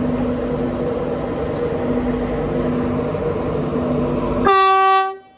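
British Rail Class 91 electric locomotive running slowly into the platform with a steady electric hum. About four and a half seconds in it sounds one short, loud horn blast, which cuts off sharply.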